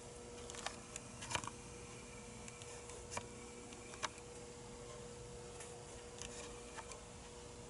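Scattered small clicks and taps, the loudest about a second and a half and four seconds in, as of handling things under the tractor's dash, over a faint steady hum.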